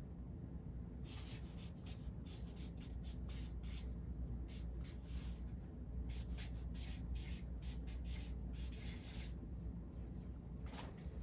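Felt-tip marker writing on notebook paper: a quick run of short scratchy strokes starting about a second in, a brief pause, then a few more strokes near the end, over a steady low hum.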